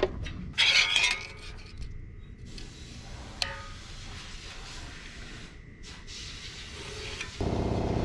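Light scraping and clinking of a metal ruler, square and marker against a steel plate as lines are marked out, with a louder scrape about a second in and a sharp click a little past the middle. Near the end an engine starts up and runs steadily.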